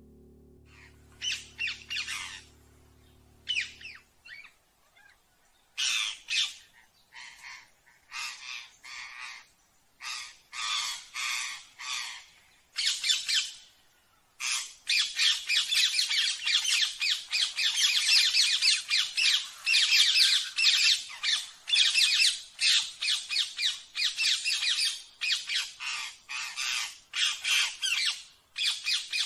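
Ring-necked parakeet squawking: separate groups of harsh calls at first, then from about halfway a loud, rapid, unbroken run of squawks.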